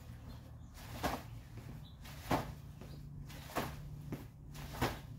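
Four evenly spaced thuds, about one every second and a quarter: a shoe kicking a stuffed training dummy with repeated low roundhouse kicks to the pelvis.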